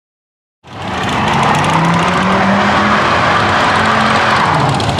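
A car doing a burnout: the engine is held at high revs while its tyres squeal and smoke. The sound cuts in abruptly just over half a second in and holds steady.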